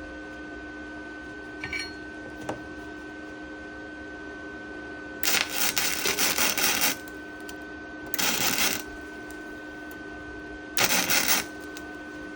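Gasless flux-core MIG welding: three short crackling tack welds, the first about a second and a half long, the next two shorter, with pauses between them.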